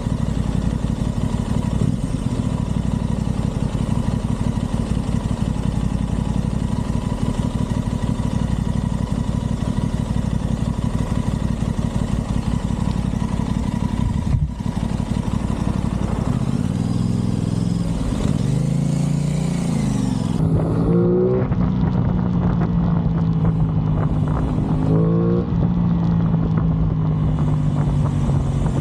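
Aprilia Tuono 660's parallel-twin engine running on the move, at first with a steady note under a haze of noise. In the second half the engine note falls and rises several times as it changes speed.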